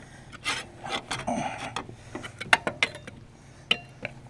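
A hand deck scraper scraping caked wet grass off the underside of a lawn mower deck, in irregular short scrapes with sharp clicks as it knocks against the metal.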